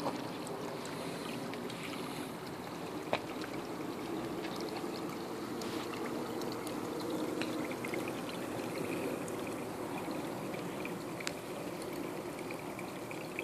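Water running and bubbling steadily in an aquaponics fish tank, with a single sharp click about three seconds in.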